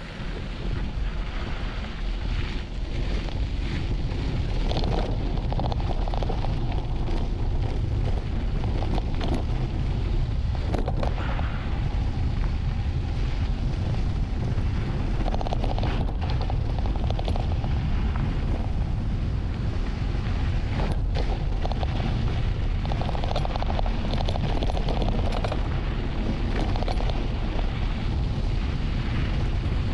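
Heavy wind buffeting on the microphone of a camera on a mountain bike riding fast downhill, a steady low rumble with a few sharp knocks and rattles.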